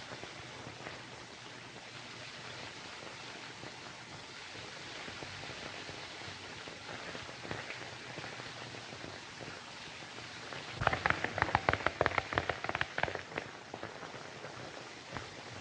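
Steady hiss of an old film soundtrack, then about eleven seconds in a horse galloping: rapid hoofbeats on dirt for about three seconds.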